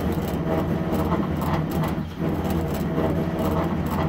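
Automated dog tag engraving machine running as it engraves a metal pet ID tag: a steady low motor hum with rapid clicks from the engraving head over it.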